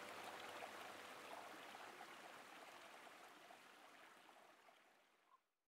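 Faint flowing stream, an even rush of water, fading steadily away over about five seconds.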